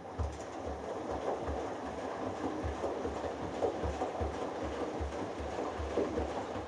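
Hoover Dynamic Next washing machine drum turning in a delicates wash, water and laundry sloshing with low, regular thumps about twice a second. It runs for a few seconds and dies away near the end as the drum stops.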